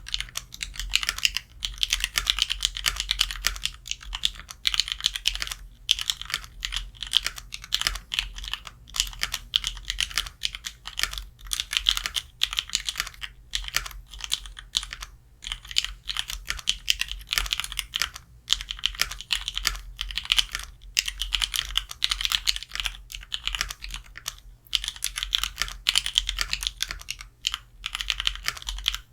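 Mechanical keyboard with lubed Kailh Pro Purple tactile switches, GMK keycaps and a sorbothane-lined case being typed on: a fast, uneven run of keystroke clacks with a few short pauses.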